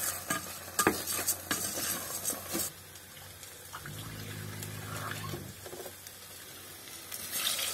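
Wooden spoon stirring rice in a steel saucepan, with scrapes and knocks against the pan for the first couple of seconds. Then a kitchen tap runs water into a small cup, with a low steady hum for about a second and a half.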